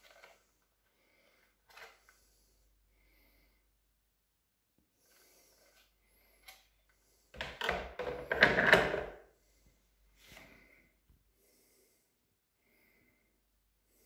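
Clear plastic dust container of a Bosch canister vacuum cleaner being handled in its housing: a few light plastic clicks and knocks, then a louder burst of plastic clattering and scraping about seven to nine seconds in.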